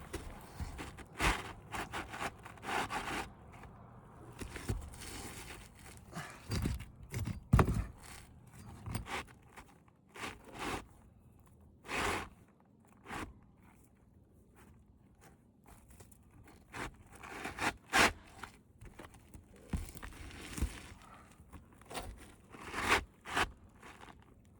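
Asphalt roof shingles being worked by hand: irregular scraping, crunching and tearing of the gritty shingle material, with scattered knocks.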